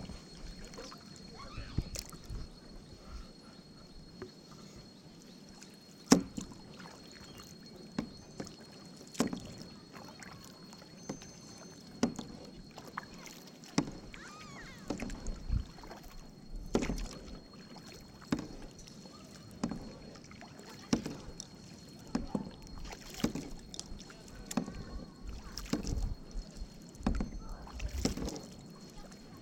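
Canoe paddle strokes in lake water, a splash and pull about once a second, steadier and stronger from about six seconds in.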